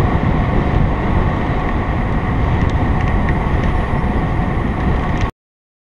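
Wind rushing over the microphone of a bicycle-mounted camera, with tyre and road noise from the bike rolling along asphalt at speed; steady throughout, cutting off suddenly about five seconds in.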